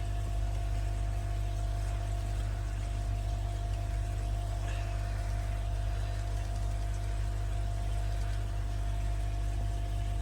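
Steady low mechanical hum with a faint constant whine above it, typical of a pond pump running.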